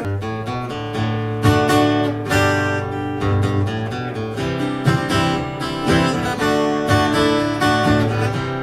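Instrumental break in a live country song: strummed acoustic guitar over a steady bass line.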